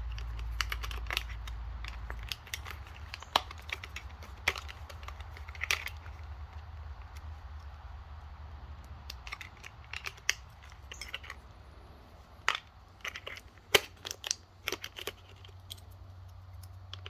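Small plastic clicks and snaps of a GellyBall G2 gel blaster's battery door being popped off and snapped back on while the battery and its connector are handled, in scattered, irregular clicks.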